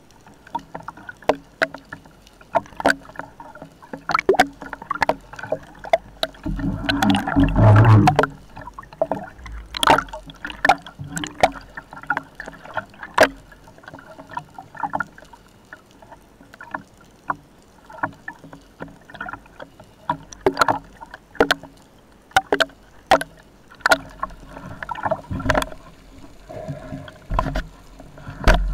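Underwater sound through a camera housing on a speargun: irregular sharp clicks and knocks over a low water hiss, with a louder rush of water about seven seconds in.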